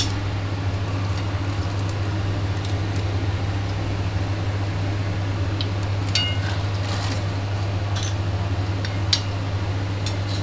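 A metal spoon and ladle stirring chole gravy in a kadhai, with a few light clinks and scrapes against the pan, mostly in the second half. These are heard over a steady low hum and noise that run throughout.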